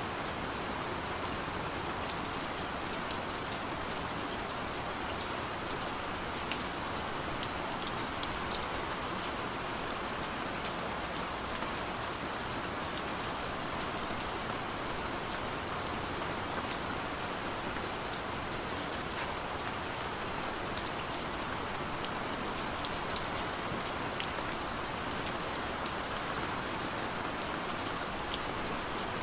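Steady gentle rain falling, an even hiss with scattered individual drops ticking on a surface.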